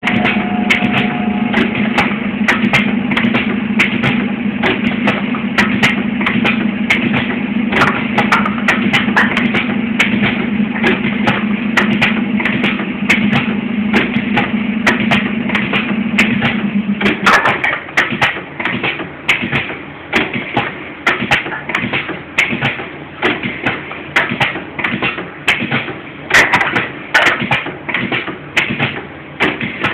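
Pad printing machine at work, clicking and knocking over and over as it cycles and parts are handled, over a steady low hum. The hum cuts off a little past halfway, leaving a quick run of clicks and knocks.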